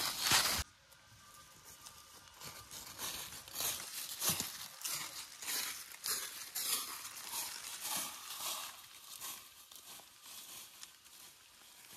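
Footsteps crunching through thick dry fallen leaves. Close and loud at first, they cut off suddenly under a second in, then go on as fainter, irregular crunching and rustling steps.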